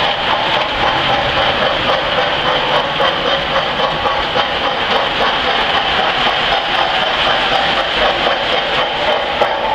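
Lionel 390E Standard Gauge tinplate locomotive hauling a ten-car train of metal reefer cars over tubular steel track: a steady rolling rattle of wheels on the rails with a constant whine from the motor and gears.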